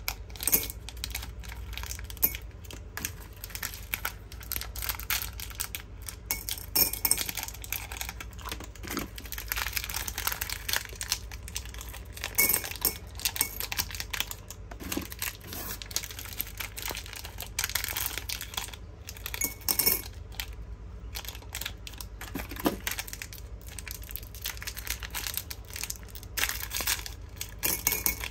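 Hard candies and their plastic packaging being handled: a steady stream of small irregular clicks, clinks and crinkles.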